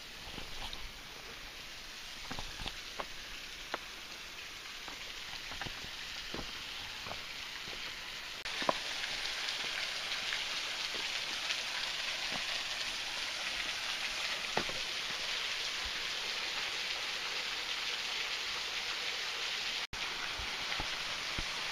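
Steady splashing hiss of a small waterfall falling into a pool, growing louder about a third of the way in, with scattered crunching footsteps on a dry, leaf-covered dirt path.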